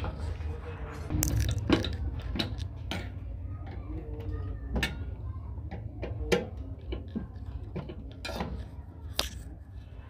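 A screwdriver and metal parts clicking, tapping and scraping against the sheet-metal chassis of an opened microwave oven beside the magnetron, with irregular sharp clicks and knocks over a steady low hum.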